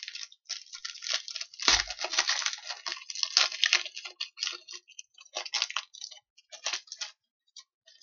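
A trading card pack's wrapper being torn open and crinkled by hand, a dense run of crackling for a few seconds that then thins to scattered crinkles.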